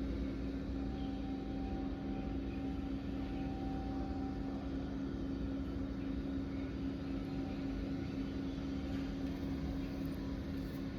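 A steady low mechanical hum with a few constant tones, and a faint higher tone that comes and goes in the first half.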